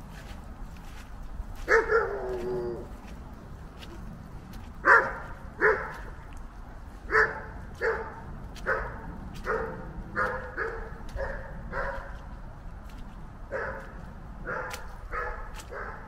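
A dog barking repeatedly, a dozen or more barks: one longer bark with a falling pitch about two seconds in, then a run of short barks every half to one second from about five seconds on.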